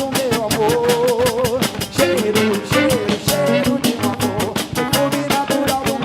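Live band playing an upbeat Bahian axé song with drum kit and guitar under a fast, even beat, and a wavering melody line carrying through it.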